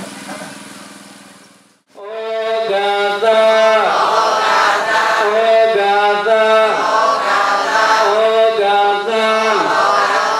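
A steady hum fades out, then after a brief silence about two seconds in, a melodic chant begins: held notes stepping up and down, one after another.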